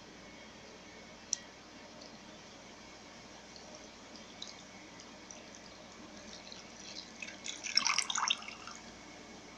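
Beer poured from a glass bottle into an empty ceramic slow-cooker crock, splashing and dripping. The splashes build up and are loudest near the end, with a single sharp click about a second in.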